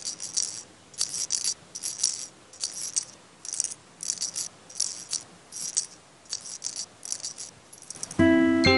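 Shaker-type rattle percussion from the show's soundtrack, shaken in short irregular bursts, two or three a second. Near the end, music with bright bell-like mallet notes comes in.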